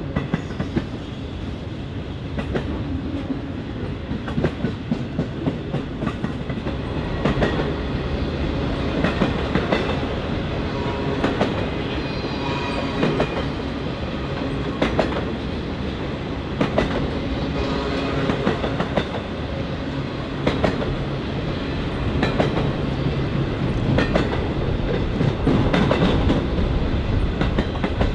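Freight train cars rolling past, a steady rumble with wheel clicks every second or two.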